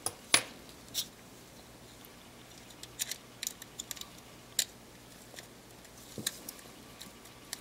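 Light, irregular plastic clicks and taps as the front cover of a Panasonic Lumix ZS19 compact camera is handled and pressed onto the camera body, a dozen or so short clicks scattered unevenly.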